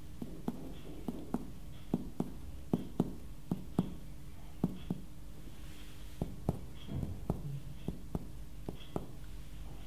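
Finger-on-finger percussion of a man's bare abdomen: about twenty soft, short taps, mostly struck in pairs, as the examiner percusses down the right side to find the borders of the liver and estimate its size.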